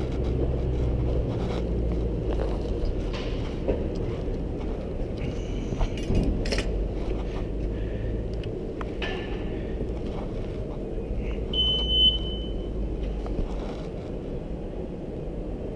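Steady low rumble of city street traffic, with scattered light clicks and one short high beep about twelve seconds in.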